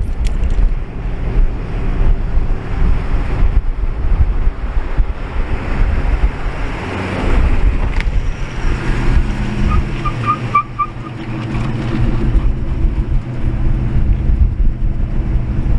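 Strong wind buffeting the microphone, with a car engine running steadily from about halfway through. A brief run of high chirps comes a little past the middle.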